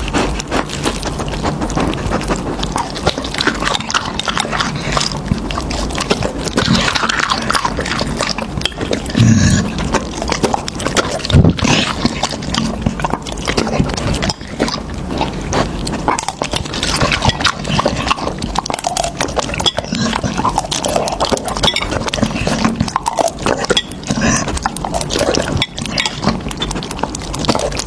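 A dog eating raw chicken heads: a continuous run of wet chewing and crunching bone, with crisp cracks throughout and a couple of louder crunches in the middle.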